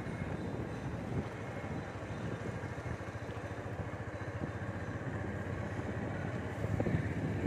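Motorcycle running at riding speed, engine and road noise steady as it travels.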